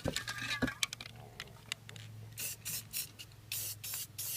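Aerosol can of Rust-Oleum gloss enamel spray paint hissing in a run of short bursts from about halfway through, after a few clicks and rattles at the start.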